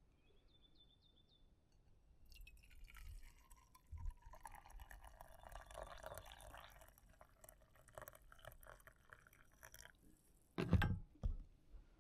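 Coffee being poured from a French press into a cup for several seconds, followed by two knocks near the end.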